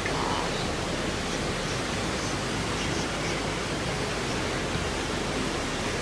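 Steady rushing of a waterfall and the whitewater churning below it.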